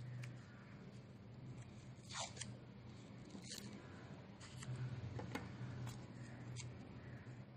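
Micropore paper tape being pulled off its roll and wrapped around a finger: about four short, faint rips and rustles over a low steady hum.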